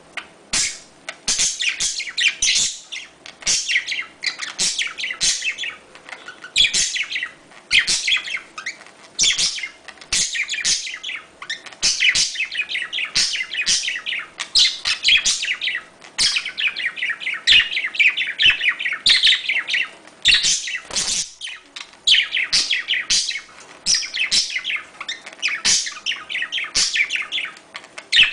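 Budgerigars (budgies) chattering in their courtship calls: quick runs of high chirps and warbles, burst after burst with short gaps between.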